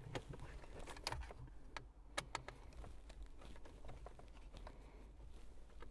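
Faint scattered clicks and light taps from a screwdriver and plastic dashboard trim being handled as a screw is driven into the console bracket.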